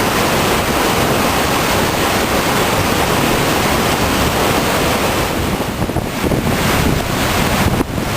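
Waterfall rushing, a loud, dense, steady roar of falling water. About two-thirds of the way in, gusty wind buffets the microphone and the sound turns uneven and rumbling.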